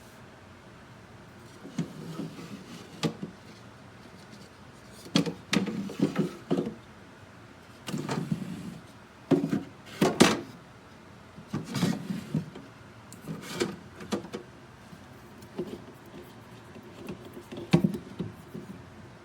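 Irregular handling noises: sharp clicks and knocks mixed with brief rubbing and bumping, coming every second or two.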